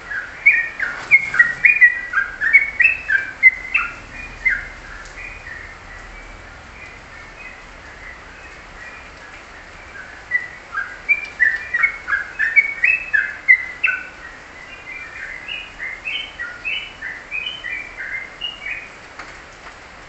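A caged bulbul singing in quick runs of short, clear chirping notes. The song is loudest in the first four seconds and again from about ten to fourteen seconds in, with a quieter gap between and softer notes toward the end.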